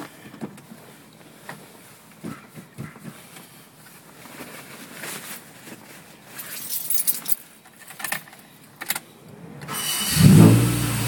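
A few light clicks and rattles of keys at the ignition. Then, about ten seconds in, the Saturn's engine starts up and settles into a steady idle.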